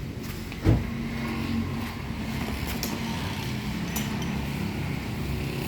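Car engine idling steadily, with one sharp knock about two-thirds of a second in.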